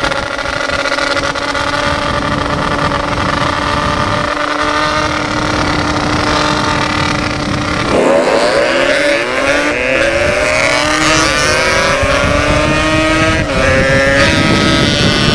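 Yamaha RX-King single-cylinder two-stroke motorcycle engine through an aftermarket expansion-chamber exhaust, running at a steady pitch, then revving up and down repeatedly from about 8 seconds in.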